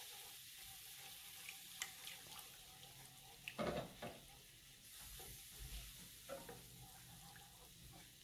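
Faint swishing and scraping of a silicone-coated whisk stirring thick roux-and-broth gravy in a frying pan, over a light sizzle. A few louder scrapes of the whisk against the pan stand out, the loudest about three and a half seconds in.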